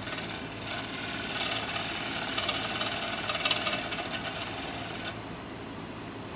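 Bowl gouge making a light finishing cut on a spinning pear-wood bowl on a wood lathe: a soft hiss of fine shavings over the lathe's steady hum. The cut stops suddenly about five seconds in, leaving the lathe running.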